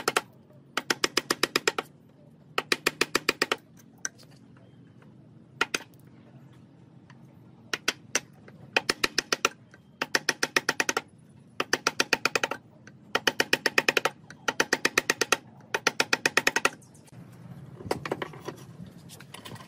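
Wooden mallet rapidly tapping a wood chisel into a hardwood board: bursts of fast, even knocks, about ten a second and a second long, with short pauses between and a couple of single knocks. Near the end the knocking gives way to a softer rubbing of wood.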